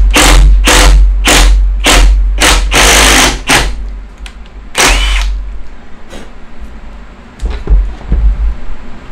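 Cordless drill boring into the wooden rocker with a spade bit, cutting in rapid repeated bursts about two or three a second, counterboring the hole so the screw head sits below the surface. The drilling stops after about three and a half seconds, with one more short burst around five seconds in, then a few low knocks near the end.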